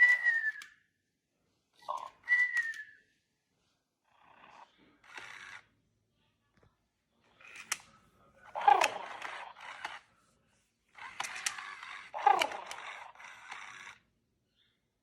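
FurReal Pets interactive macaw toy sounding its electronic parrot calls: two short downward whistles, then three longer, noisier squawking calls. The calls stop about a second before the end.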